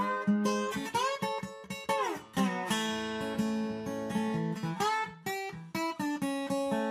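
Background music: acoustic guitar picked and strummed, with a few notes that slide in pitch.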